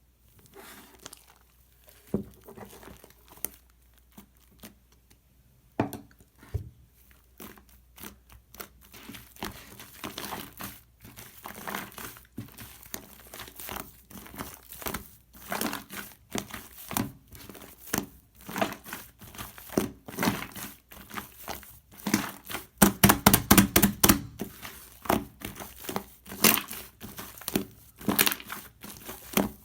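Slime mixed with shaving foam being squeezed and kneaded by hand, giving irregular sticky pops and crackles. They start sparse, then come thicker, and turn into rapid loud crackling about three-quarters of the way through.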